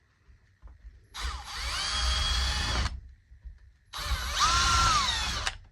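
Power drill boring pilot holes with a slightly larger bit into glued toothpick plugs in a door: two runs of about a second and a half, each speeding up and then slowing down.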